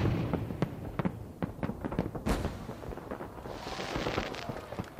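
Fireworks going off: a rapid, irregular string of bangs and crackles, with a rushing hiss about four seconds in.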